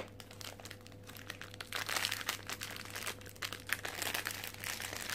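Foil wrapper of a blind-box plush crinkling in the hands as it is opened, in quick irregular crackles that grow busier about two seconds in.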